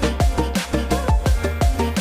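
Background music: an upbeat electronic dance track with a punchy kick drum about twice a second, a deep bass line and a bright melody.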